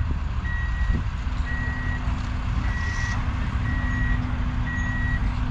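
A vehicle's reversing alarm beeping, one high tone about once a second with each beep half a second long, over the steady low rumble of an engine running.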